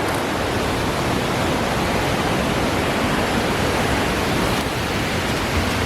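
A waterfall's water rushing in a loud, steady roar that does not change.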